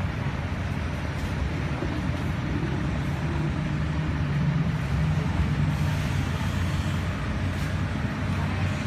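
Steady low engine rumble of a motor vehicle on the street, with road-traffic noise. The rumble swells slightly about halfway through.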